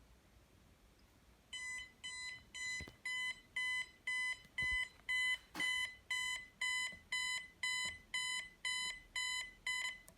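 1980s burglar alarm system sounding a pulsing electronic beep, about two beeps a second, starting about a second and a half in.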